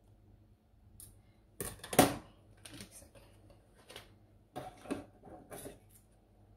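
Kitchen scissors snipping at the tip of a plastic piping bag of custard and being set down on the counter, with the bag's plastic crinkling as it is handled. The sound is a run of short, sharp clicks, the loudest about two seconds in.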